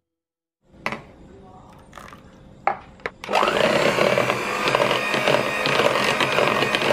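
A few light knocks, then about three seconds in an electric hand mixer starts and runs steadily, its wire beaters whirring and rattling as they beat cream-cheese cheesecake batter in a bowl.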